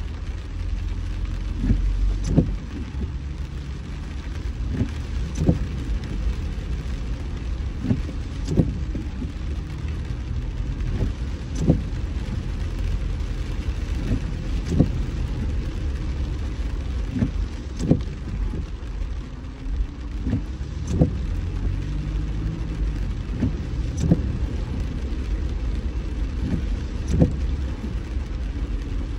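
Car driving on a wet road: a steady low road and tyre rumble, with a short click repeating about every three seconds.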